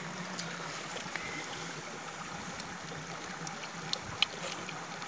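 Steady rush of running stream water, with two short sharp clicks about four seconds in.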